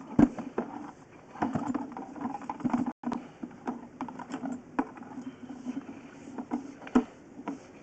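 A sewer inspection camera on its 1-inch push rod being pulled slowly back up the drain line: irregular clicks, knocks and scrapes as the rod and camera head drag through the pipe, over a steady low hum.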